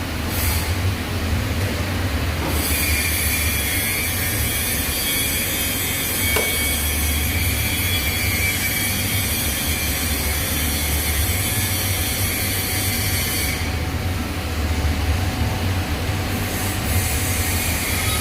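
TIG welding arc hissing steadily on stainless steel over a constant low hum. The hiss sets in a couple of seconds in and stops for about two seconds near the end before starting again.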